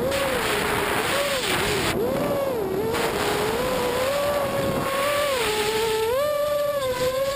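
Brushless motors and propellers of a 250-class FPV racing quadcopter picked up by its onboard camera: a whine whose pitch keeps dipping and rising with the throttle, over a steady rush of prop wash and wind.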